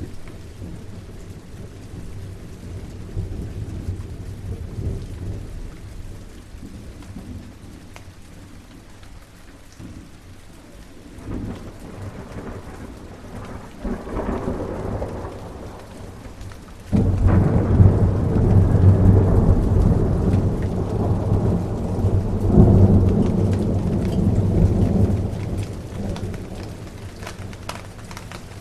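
Steady rain with rolling thunder. A low rumble builds, then a much louder peal breaks in suddenly past the middle, rolls on for several seconds and fades away near the end.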